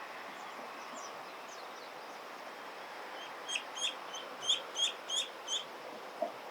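Eastern spot-billed duckling calling loudly: a quick run of about seven short, high peeps starting about halfway through. The uploader wonders whether its voice is beginning to break.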